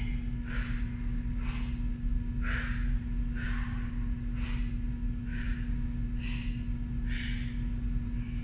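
A woman breathing out hard through her nose and mouth, one short exhalation about every second, in time with the reps of a toe-reach crunch.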